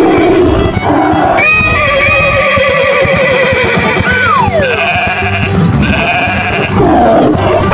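Cartoon animal-call sound effects over background music: a long wavering, bleat-like call, then a falling whistle-like glide about four seconds in, followed by a fast repeating high musical figure.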